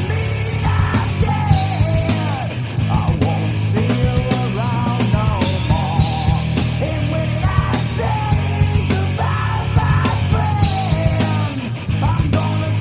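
Grunge rock song: a full band with drums plays loud and steady while a singer half-sings, half-yells the vocal line.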